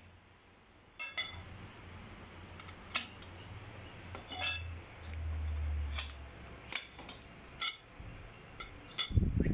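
Metal tubes of a butterfly chair frame clinking against each other and the tile floor as they are handled: a string of sharp, ringing metallic clinks roughly every second, with a dull low thump near the end.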